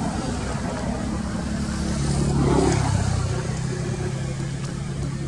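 A motor vehicle's engine running with a steady low hum, swelling louder about halfway through.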